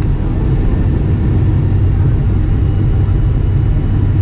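Cabin noise of a Boeing 767-300ER on final approach, heard from a window seat over the wing: a steady low rumble of airflow and its Rolls-Royce RB211 engines.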